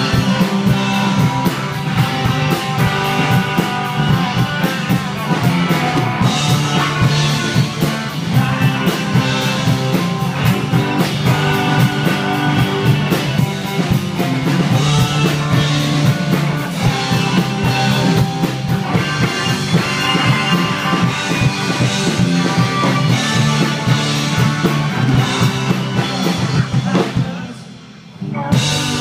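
A live band playing rock-flavoured Americana with a drum kit and guitars, loud and steady. Near the end the music drops away abruptly for about a second and then comes back in.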